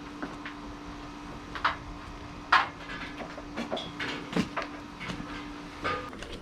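Scattered light clicks and knocks of vinyl siding trim being handled. Under them runs a steady hum that cuts off near the end.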